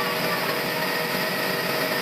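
Sawmill machinery running steadily: a constant mechanical rush with a steady whine on top.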